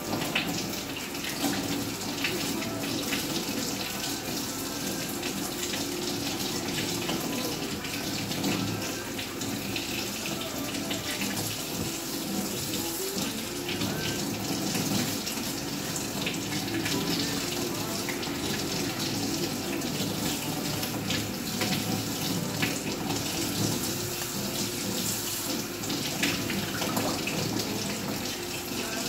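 Kitchen faucet running steadily into a sink, the stream splashing over mushrooms held under it by hand and into a plastic bowl.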